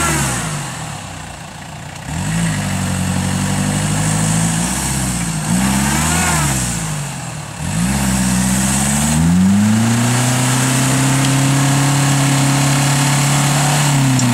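Toyota Land Cruiser turbo-diesel engine revving hard under load while the tyres spin in soft sand. The revs rise and fall several times, then climb and are held high and steady, dropping away near the end.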